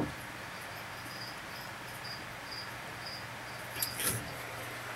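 A cricket chirping at an even pace, about two short chirps a second, over a faint low hum. A couple of brief knocks come near the end.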